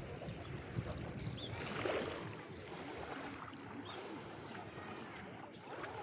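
Calm sea water lapping gently on a sandy shore, with wind on the microphone.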